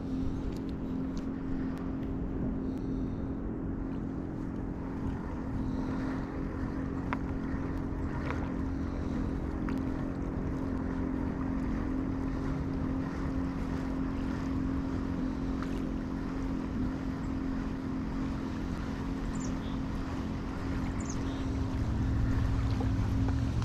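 Steady low engine drone at a constant pitch, running without change, with faint wind rumble on the microphone.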